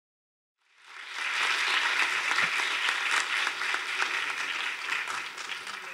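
Audience applauding: many hands clapping together, coming in about half a second in and dying down near the end.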